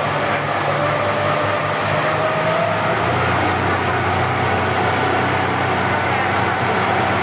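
Speedboat engine running steadily at speed, with a whine that creeps up slightly in pitch and a rushing noise underneath.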